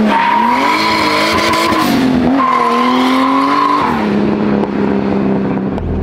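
Turbocharged six-cylinder engine of a 1972 BMW 2002 driving past under power, with a high steady whine over the engine note. The note breaks briefly about two seconds in, picks up again, then drops away near four seconds as the car goes by.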